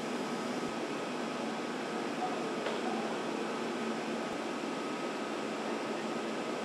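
Steady machinery noise of a banknote paper factory: an even hum with a faint steady whine.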